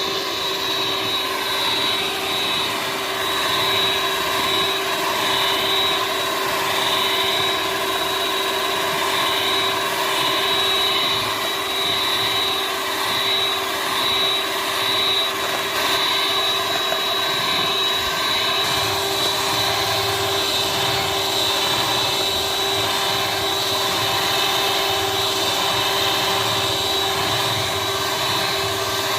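Electric mixer running steadily with a constant motor whine, beating eggs and sugar into a sponge cake batter.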